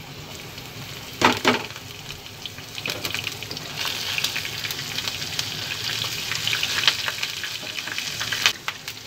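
Cumin seeds, asafoetida and split green chillies hitting hot oil with fried onions for a tadka, sizzling and crackling while a wooden spatula stirs them. A short sharp clatter about a second in, then the sizzle builds.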